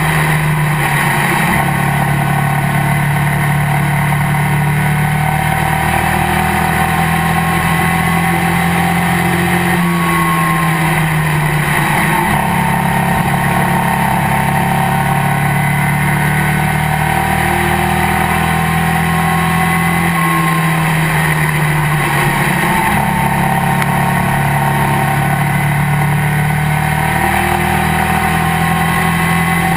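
Legends race car's motorcycle-derived engine running hard, heard from inside the cockpit with wind and road noise. Its pitch sags and climbs back a few times as the throttle is lifted and reapplied through the turns.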